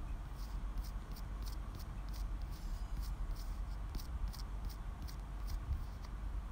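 Faint quick ticking, about three short clicks a second, over a low steady hum.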